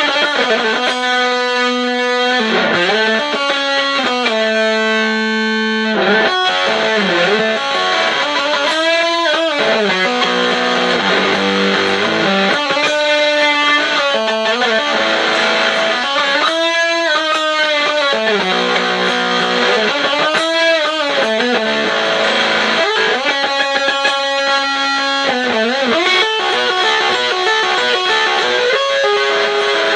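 Electric guitar played through a Buzzsound distortion pedal with its sustain full up: held, sustaining notes with repeated string bends and vibrato.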